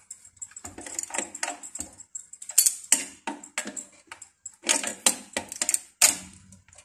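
Irregular metallic clicks and clinks of a hand tool on the lock nut of an industrial sewing machine's motor-mount bracket, as the nut is tightened to lock the motor once the drive-belt tension has been set.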